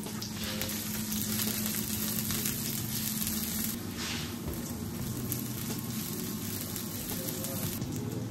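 Food sizzling as it fries in a hot pan: a steady hiss dotted with fine crackles, louder for a few seconds about a second in, over a steady low hum.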